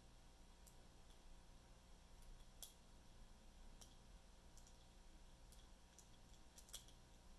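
Faint, scattered small clicks of a steel lock pick and tension wrench working the pin stack of an ABUS 72/40 Lotto padlock, which has spool security pins. The two sharpest clicks come about two and a half seconds in and near the end.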